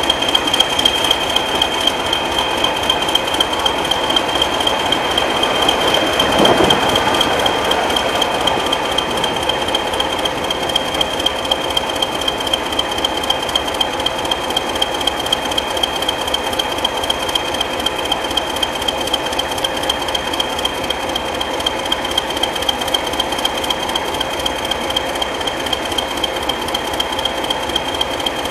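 British Rail diesel locomotive engine idling steadily, with a regular beat about twice a second and a steady high-pitched whine over it; a brief louder swell about six seconds in.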